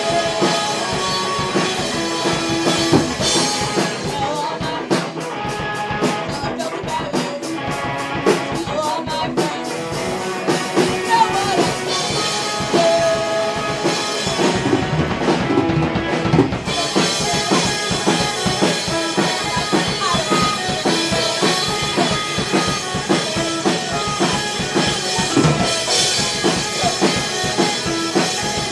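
Live rock band playing, the drum kit prominent. A fast, even run of drum hits comes between about 4 and 10 seconds in, and the cymbals drop out briefly around 15 seconds before the full band comes back in.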